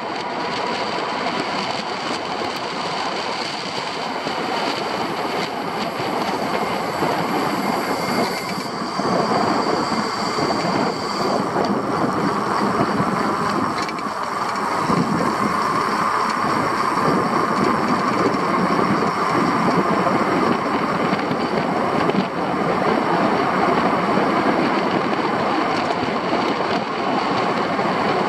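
Steady rushing wind and road noise of an open vehicle riding downhill, with a faint steady whine through the middle part.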